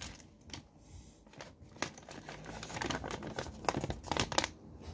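Paper crinkling and rustling as a folded printed leaflet is opened out by hand: a run of short crackles, busiest in the second half.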